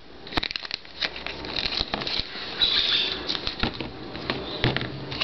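Handling noise from a plastic-sleeved trading card and tag: rustling and sharp clicks, with a crinkly stretch partway through. A soft vinyl monster figure is set down on a tabletop with a knock.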